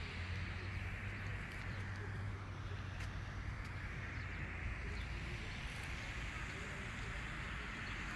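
Steady background noise with a low rumble throughout and faint voices, with no single clear event.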